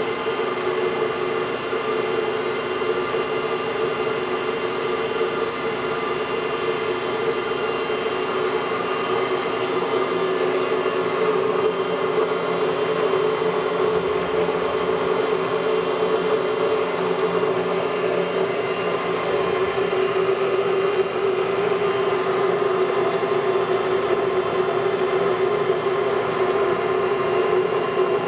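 LeBlond Regal engine lathe running under power: a steady mechanical hum with a continuous whine.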